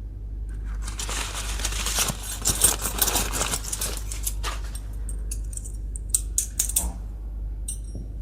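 Plastic packaging crinkling and tearing for a few seconds, then several sharp clicks of small plastic toy pieces being handled.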